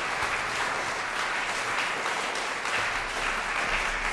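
Audience applauding, a dense steady clapping that holds at an even level.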